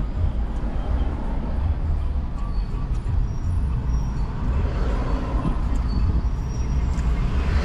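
Toyota car's cabin noise while driving slowly in traffic: a steady low rumble of engine and road.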